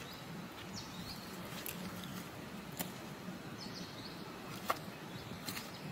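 Forest ambience: steady background noise with two brief high bird chirps, about a second in and about four seconds in, and a few scattered sharp clicks.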